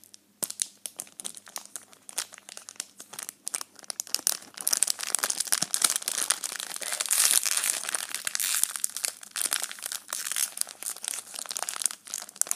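Foil Cardfight!! Vanguard booster pack wrappers crinkling and crackling in the hands as fingers pick and peel sticky tape off them: a dense run of sharp crackles and ticks, busiest in the middle.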